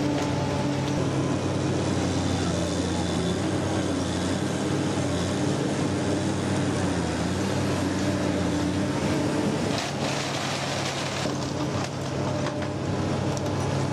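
Lindner Urraco 75 D mobile shredder running under load, its diesel engine a steady drone under the rushing, grinding noise of waste going through the shredder, with a few sharp cracks in the last few seconds.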